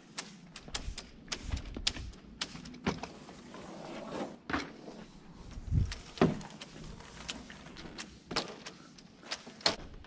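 Irregular clicks and knocks, with a few heavier low thumps about six seconds in.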